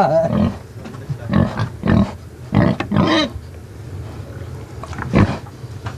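A pig giving a handful of short grunts while it eats greedily.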